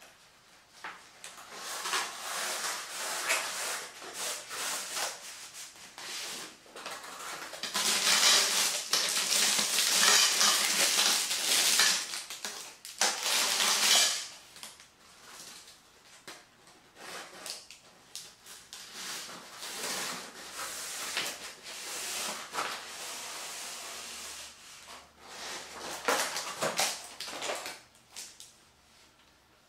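Plastic packaging and a fabric shelf cover rustling and crinkling as shoe-shelf parts are unpacked by hand, with a few light knocks of parts. The rustling comes and goes, loudest for several seconds about a third of the way in.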